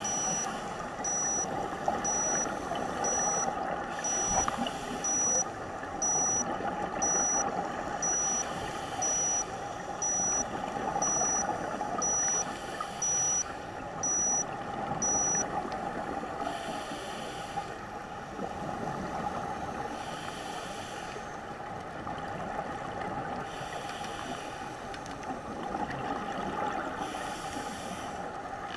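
Scuba diver's regulator underwater: exhaled bubbles rush out every three to four seconds over a steady underwater hiss. For about the first half a short high electronic beep repeats about once a second, then stops.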